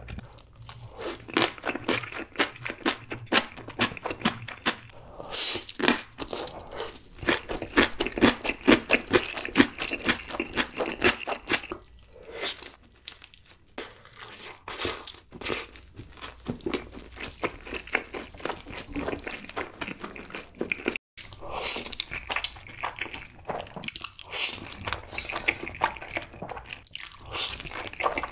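Close-miked eating sounds: rapid crunching and chewing of sauced fried chicken and black bean sauce noodles, with a sudden brief drop-out about two-thirds of the way through.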